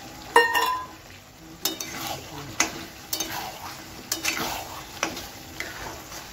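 A steel spatula stirs chopped tomatoes through a thick, sizzling sauce in a kadai, scraping and clacking against the pan in separate strokes. The sharp metal clink about half a second in rings briefly and is the loudest sound.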